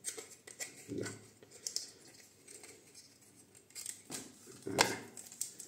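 Small metallic clicks and light scrapes of a double-edge safety razor, a Goodfellas Syntesi, being handled and a Kai blade fitted, with the sharpest clicks about a second in and near the end.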